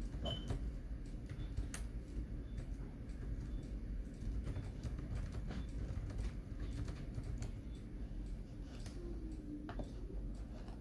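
Scattered light clicks and taps, irregularly spaced, over a steady low hum.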